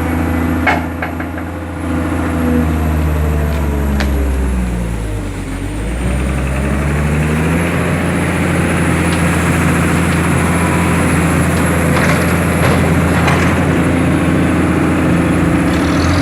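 Heavy machinery engine running steadily; a little after the middle its pitch sags and then climbs back. A few sharp knocks sound over it.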